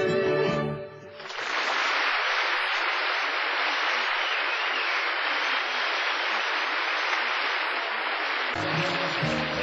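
Audience applauding for about seven seconds, starting just after a song ends, with the band's music coming back in near the end.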